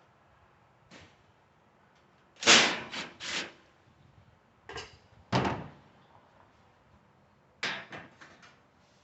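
Sheet-metal stove panels being handled and knocked about: a faint knock, then several loud bangs and rattles in clusters, the loudest group about two and a half seconds in.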